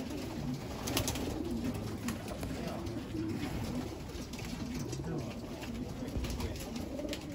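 Many racing pigeons cooing in a loft, their calls overlapping without a break, with a few sharp clicks.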